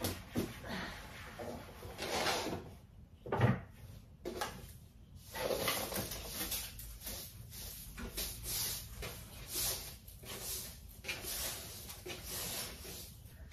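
Household items being handled while dusting a room: irregular rustling and scraping as things on a shelf are moved and set down, with one sharp knock about three and a half seconds in.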